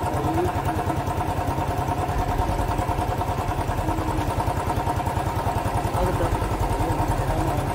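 Motorcycle engine idling steadily, with an even, rapid low beat that holds the same pace throughout.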